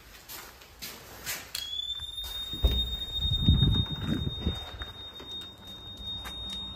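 A steady high-pitched tone that starts about a second and a half in and holds unbroken, with a low rumble swelling around the middle and a few clicks near the start.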